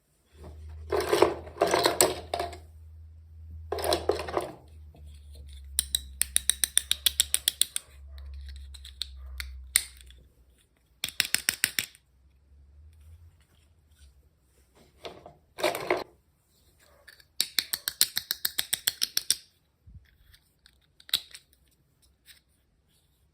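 Close-up unboxing noises from small packaging being handled: rustling bursts, then several quick runs of rapid, even clicking.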